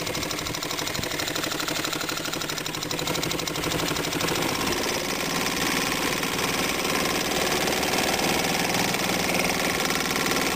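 1971 Evinrude Mate 2 hp single-cylinder two-stroke outboard motor idling steadily, a little louder from about four seconds in. It runs smoothly, its carburetor freshly rebuilt and cylinder head replaced.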